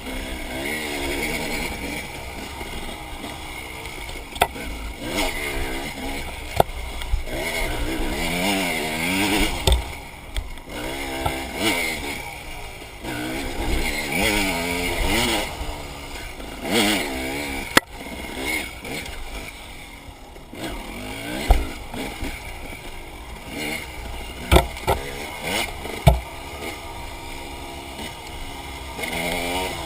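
Enduro dirt bike engine revving up and falling back again and again as the bike is ridden, with sharp knocks scattered through.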